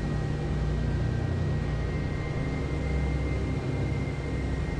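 Jet airliner heard from inside the cabin on landing approach: a steady drone of engines and rushing air. A thin high whine becomes clearer about two seconds in.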